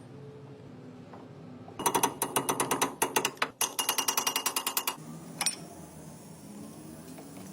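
A rapid run of sharp metallic clicks, about eight a second, lasting about three seconds with a brief break midway, followed by a single knock about a second later.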